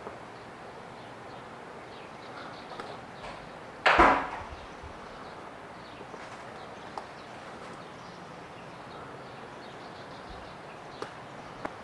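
Quiet room tone broken by one sharp knock about four seconds in, with a few faint clicks.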